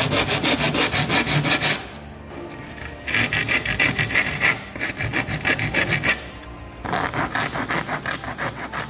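Hand rasp file scraping quickly back and forth along the edge of a laser-cut plywood surfboard frame, flushing it down so the glue gets a mechanical key. The strokes come in runs of rapid rasping, with short pauses about two seconds in and again just after six seconds.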